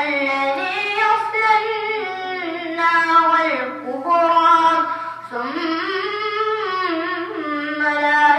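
Quran recitation: a single voice chanting Arabic in long, ornamented melodic phrases, holding notes and sliding in pitch between them, with brief breaks between phrases.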